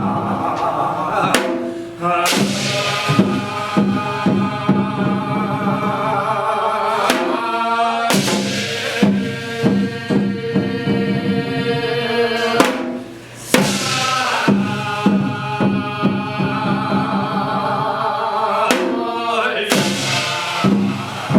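Korean Hwanghae-do shaman ritual (gut) music in a modern stage arrangement: chanted singing with held notes over drum and percussion, in phrases broken by brief pauses.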